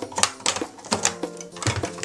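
Rapid clicks and taps of small plastic toys being handled, over a simple background tune with held notes.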